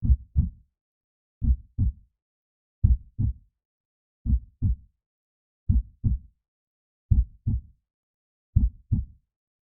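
Heartbeat sounds: a slow, steady rhythm of paired low thumps (lub-dub), one pair about every one and a half seconds, with silence between the beats.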